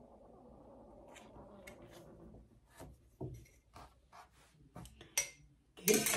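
Soft rustling of satin fabric being handled and smoothed, then a series of light clicks and taps as a steel ruler is laid down and shifted on the fabric and sewing table.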